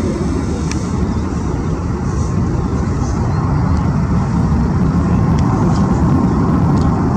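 Jet engines of an Airbus A330 airliner at takeoff thrust as it climbs out: a steady deep roar that grows slightly louder toward the end.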